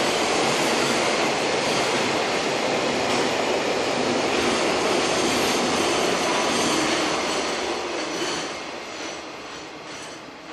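Container freight train wagons rolling along the rails: a steady rush of wheel-on-rail noise that fades over the last couple of seconds.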